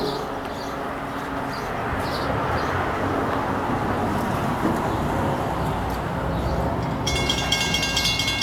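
MBTA commuter rail train approaching, a steady rumble and rushing noise from the tracks. About seven seconds in, a steady high-pitched whine with several tones sets in.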